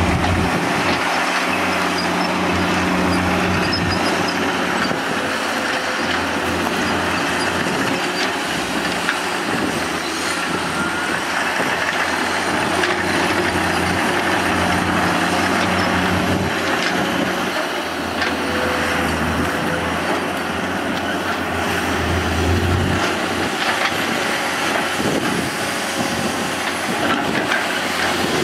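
Komatsu PC210 hydraulic excavators' diesel engines running steadily as they dig sand, the low engine note swelling now and then under load. Occasional short squeals and clanks come from the working machinery.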